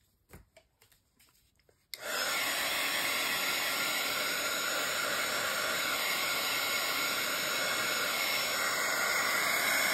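Craft heat tool (embossing heat gun) switched on about two seconds in, then blowing steadily to dry wet silver acrylic paint.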